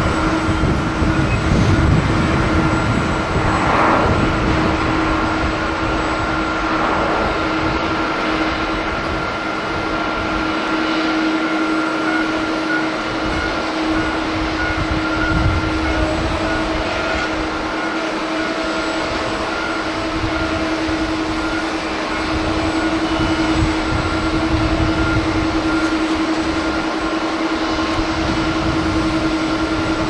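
Boeing 787-9 airliner's jet engines running steadily on the runway, a continuous noise with an unchanging hum, while gusty wind rumbles on the microphone.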